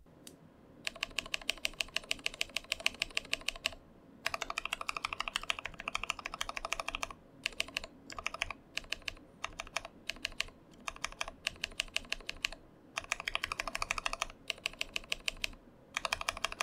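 Zealios V2 tactile mechanical keyboard switch pressed repeatedly under a keycap by one finger. It comes in quick runs of clacks, several a second, broken by short pauses, with slower single presses around the middle.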